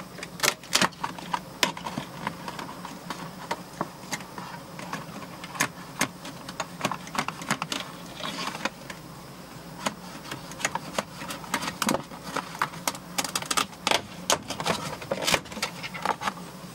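Irregular clicks, snaps and rattles of plastic clips, trim and wiring being handled by hand inside a stripped pickup-truck door.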